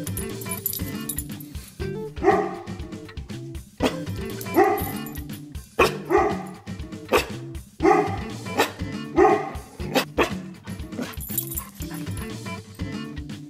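German Shorthaired Pointer puppy barking in a series of short, loud barks, about one to two a second for several seconds, over background music.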